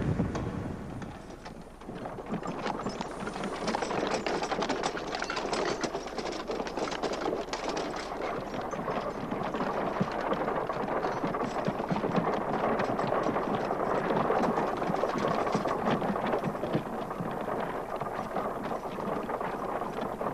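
Horse-drawn wooden wagon rolling, its spoked wheels clattering continuously with horse hooves mixed in, starting about two seconds in.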